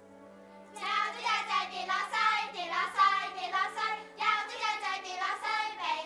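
A child's voice singing over soft, sustained background music, coming in about a second in.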